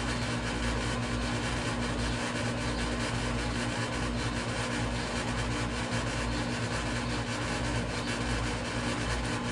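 Air conditioner running with a steady, even hum.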